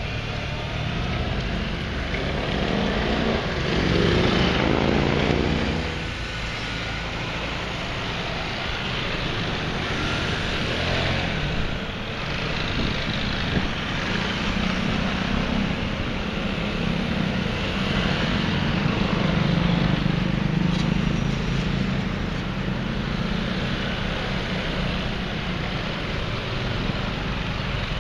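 A column of maxi-scooters and motorcycles riding past one after another, their engines rising and falling as each goes by, with the loudest pass about four seconds in.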